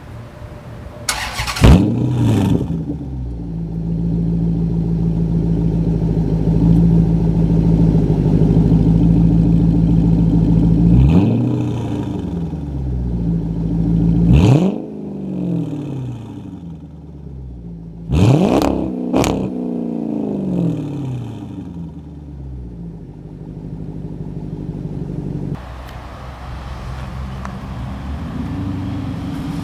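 A 2006 Dodge Charger R/T's 5.7-litre Hemi V8, heard through 2.5-inch Powerstick chambered mufflers and an H-pipe. It fires up with a loud rev flare and settles into a deep, steady idle. It is then blipped four times, each rev quickly falling back to idle: once near the middle, and three more over the following several seconds, the last two in quick succession. Near the end the sound cuts to a quieter, more distant engine rumble.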